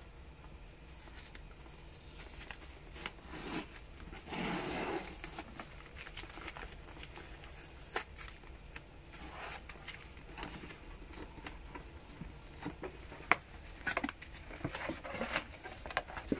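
Hands opening a taped cardboard shipping box: packing tape peeling and tearing away, cardboard scraping, and the flaps being folded open. There are a few longer stretches of tearing and scraping, the strongest about four seconds in, with scattered sharp clicks and taps between them.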